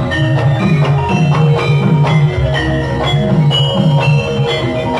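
Javanese gamelan ensemble playing jaranan dance music: a steady, driving rhythm of drums with struck metal keys and gongs ringing over it.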